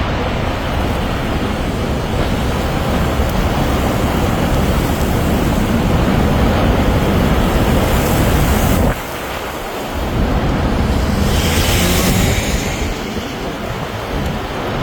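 Tornado roaring: a loud, steady, deep rumbling noise mixed with wind buffeting the microphone. The level drops suddenly for about a second just before nine seconds in, then the roar returns.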